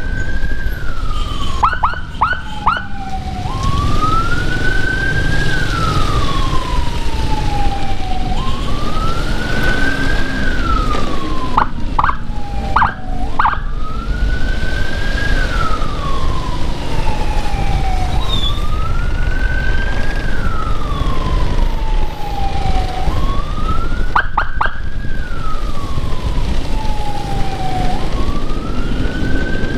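Electronic siren wailing in slow cycles about every five seconds, each a rise of about two seconds and then a longer fall. Three times it breaks into a quick run of three or four short blips. Steady road and engine noise underneath.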